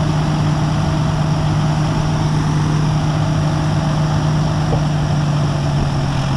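Fire truck's engine running steadily at a constant pitch while pumping water, with the rushing hiss of a fire hose stream.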